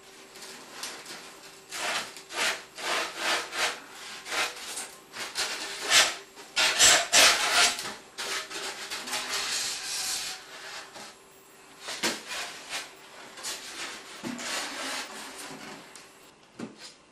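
Slabs of expanded polystyrene foam rubbing and scraping against each other as the hot-wire-cut top slab is lifted off the block and handled, in a run of irregular strokes that are loudest about six to eight seconds in.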